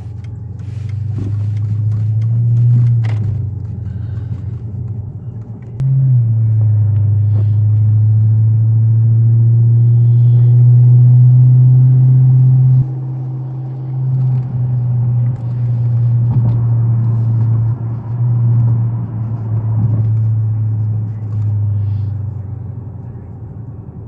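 Mercedes-Benz CLS 500 driving: a steady low drone that jumps sharply louder about six seconds in, holds, drops suddenly around thirteen seconds and fades near the end.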